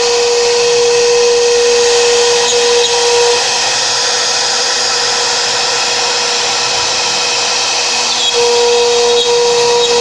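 CNC router running steadily: a loud high hiss with a steady whine over it that drops out after about three seconds and comes back near the end.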